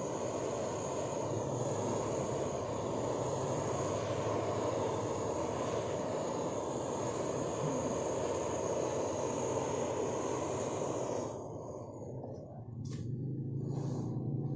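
Handheld butane torch on a gas canister, its flame hissing steadily as it melts a hollow into a block of ice. The flame cuts off suddenly about eleven seconds in, and a couple of sharp clicks follow near the end.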